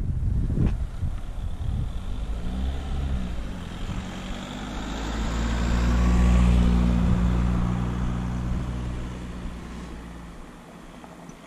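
A car drives past close by. Its engine hum grows to its loudest about six seconds in, then fades away. Wind buffets the microphone briefly at the start.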